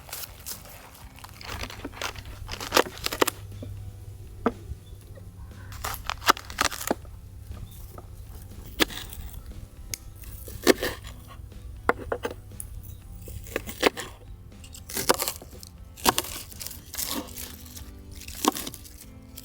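A string of irregular sharp clicks and crunches, more than a dozen, over quiet background music.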